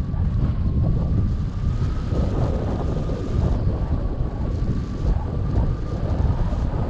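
Airflow buffeting a camera microphone on a hang glider's wing in flight: a heavy, gusting wind rumble, with a faint steady high whistle at one pitch over it.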